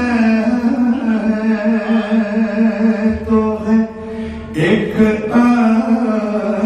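A man singing an Urdu manqabat (devotional praise song) into a microphone, drawing out one long held note for most of the time, then starting a new phrase near the end.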